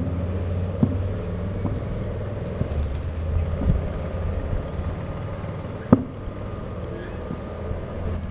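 Outdoor rooftop ambience: a steady low rumble with a few sharp clicks, the loudest about six seconds in.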